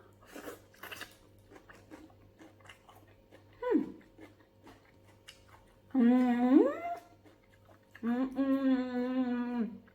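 A woman humming with her mouth closed while eating: a short falling hum, then a longer hum that rises in pitch about six seconds in, and a held, slightly wavering hum near the end. Soft mouth clicks come in the first couple of seconds.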